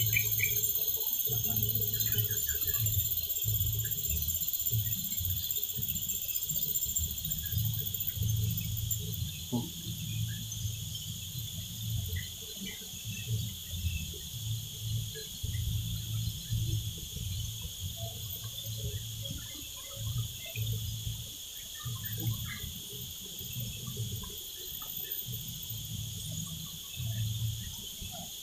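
Steady chorus of tropical insects, several high-pitched tones held unbroken, with wind rumbling on the microphone in gusts.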